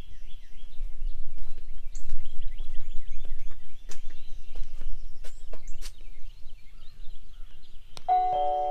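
Many small birds chirping in quick, short falling calls over a steady low rumble, with a few sharp clicks. Near the end a set of steady ringing tones starts.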